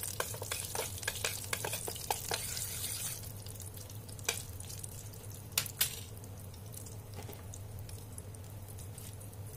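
A metal spoon clinks and scrapes as it stirs hot oil with chilli flakes, ginger and mustard seeds in a stainless steel multi-cooker pot, and the oil sizzles. The stirring stops about three seconds in, leaving a quieter sizzle with a few single clinks.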